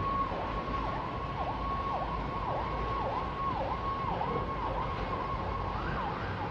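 Electronic emergency-vehicle siren: a held tone that dips sharply in pitch about twice a second, switching to a rising wail near the end.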